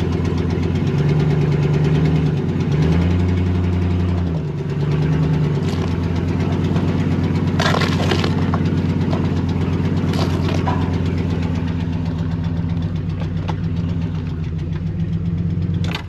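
Pickup truck engine idling loudly and steadily, with a short rise in engine speed about three seconds in. It is switched off right at the end.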